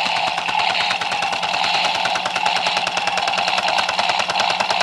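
Battery-powered toy truck shaking, its motor running with a fast, even rattle.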